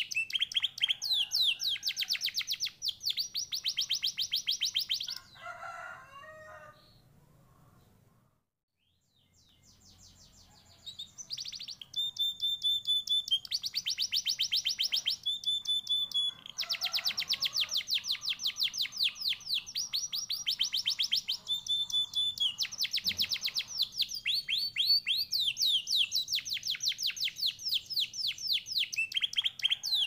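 Domestic canary singing long phrases of very rapid trills, with a few short held whistled notes, broken by a pause of a few seconds starting about five seconds in.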